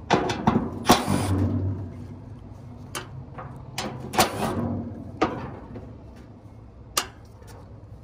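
Milwaukee M12 cordless driver running in short bursts, backing the screws out of a metal condenser fan grille. The longer bursts come about a second in and about four seconds in, with a few sharp clicks between them.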